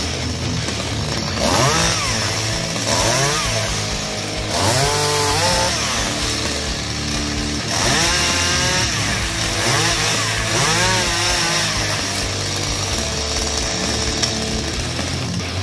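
Oleo-Mac chainsaw revved again and again, its engine speed rising and falling every second or two, while branches are cut from the spruce.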